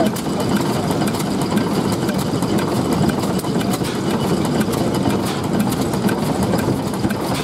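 1924 National 7 hp petrol/paraffin stationary engine, a horizontal single-cylinder with a large flywheel, running steadily with light clicking on top.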